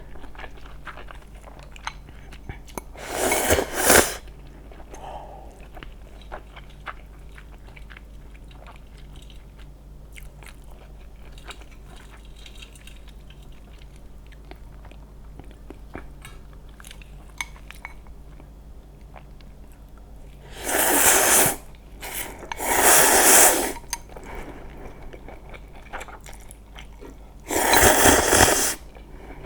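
Close-miked eating: four loud, crunchy bites or chews of about a second each, one a few seconds in and three close together near the end, with quieter chewing and small mouth clicks in between.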